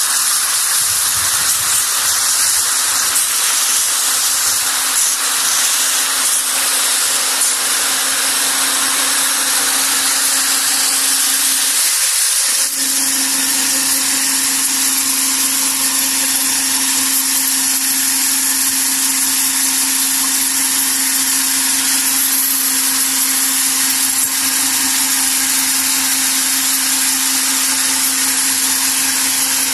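Hazelnut sacking machine running steadily: a loud, dense hiss with a constant hum underneath. The hum drops out briefly about twelve seconds in, then carries on.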